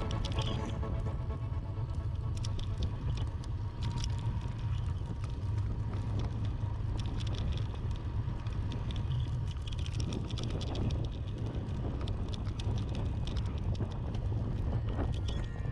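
Riding sound of a bicycle on a paved path: a steady wind rumble on the microphone with tyre hiss and scattered light clicks and rattles from the bike.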